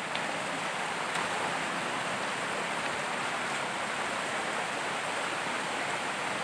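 Steady rush of a shallow, rocky river flowing over stones, with a faint tick or two.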